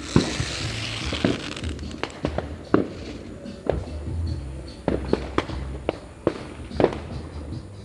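New Year fireworks and firecrackers going off: about a dozen sharp bangs at irregular intervals, with a hissing crackle in the first second or so.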